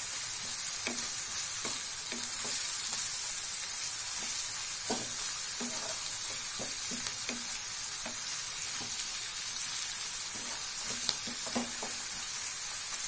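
Chopped onions, green chillies and curry leaves sizzling in hot oil in a kadai, stirred with a wooden spatula that knocks and scrapes against the pan at irregular moments over a steady sizzle.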